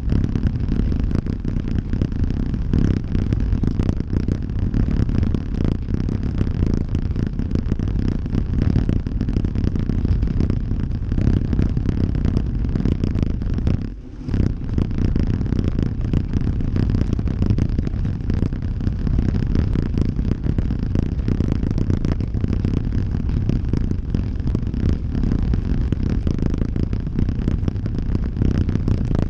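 Wind buffeting the microphone of a camera mounted on a road bike at race speed, mixed with the rumble and rattle of the bike's tyres and frame over cobblestones. The noise drops briefly about halfway through.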